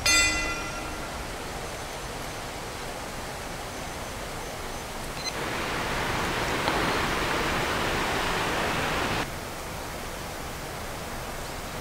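A brief buzzer tone sounds right at the start, signalling the start of a timed round, followed by a steady outdoor hiss. From about five seconds in, a louder rush of noise comes in and stops suddenly about four seconds later.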